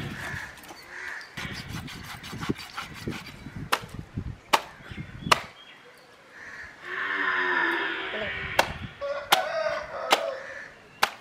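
Sharp knocks and cracks of a knife and a fixed curved cutting blade working through a large manta ray's body, in two groups about a second apart. Crows caw in the background, longest in the middle.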